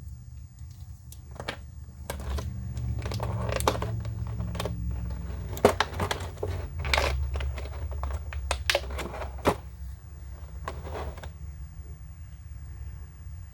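Hands handling packaging: crinkling and a run of sharp clicks and taps, busiest in the middle, over a steady low rumble.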